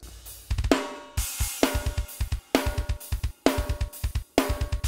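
Isolated metal drum tracks playing back: fast runs of double-kick hits, layered with a kick sample, under a sharp ringing hit about once a second, with cymbals.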